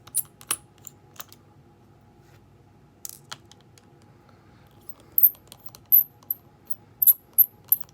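Small metal clicks and light clinks of a screwdriver and tiny screws against a smartphone's body and parts during a teardown: a few sharp ticks near the start, then a quicker run of them from about five seconds in.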